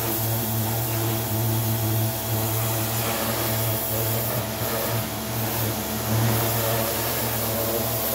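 Pressure washer running steadily: a constant motor hum under the hiss of the high-pressure water jet as it sprays a bicycle's frame and wheels.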